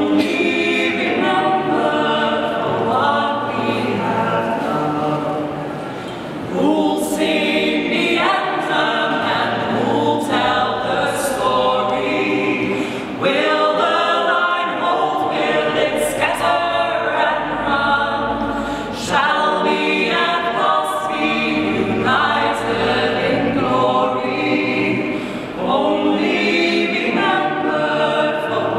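A four-voice a cappella group, two men and two women, singing together in harmony, phrase after phrase without instruments.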